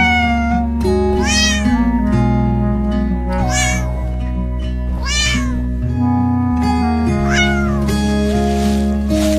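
Cat meowing, about four separate meows that rise and fall in pitch, over background music with held notes and a steady bass.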